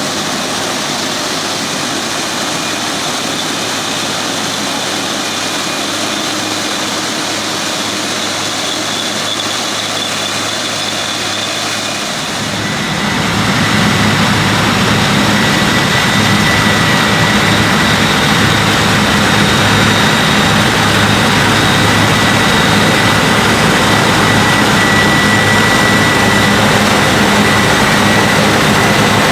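New Holland CX880 combine harvester running steadily under way in the rice harvest. About twelve seconds in it gets louder and heavier in the low end, and a steady high whine comes in on top.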